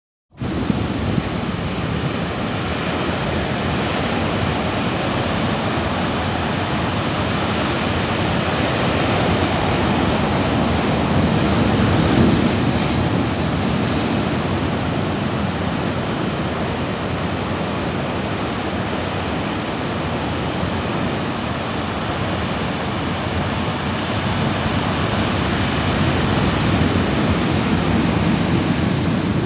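Large ocean waves breaking and washing over a rocky shore: a loud, continuous rush of surf that swells about twelve seconds in and again near the end.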